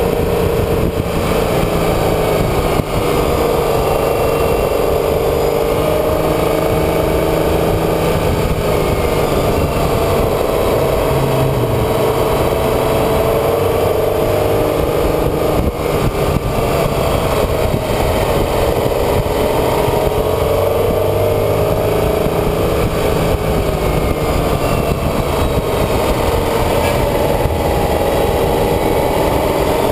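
Vehicle engine running continuously under way, its note slowly rising and falling as the speed changes, over a steady rush of road and wind noise.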